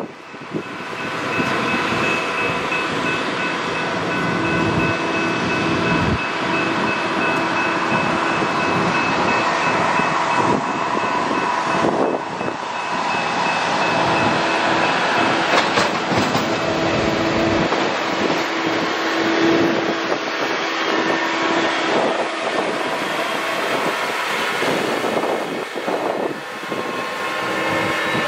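Rail maintenance-of-way machines running along the track: engine noise with a steady whine and wheels rolling on the rails, with a few sharp clicks.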